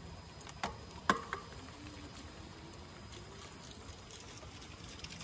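An electric bike being pedalled: a few light clicks about a second in, then a faint whine rising in pitch as the pedal-assist motor kicks in.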